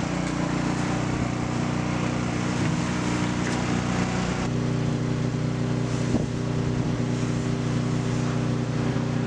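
Car engine running at a steady pitch, shifting slightly about four and a half seconds in.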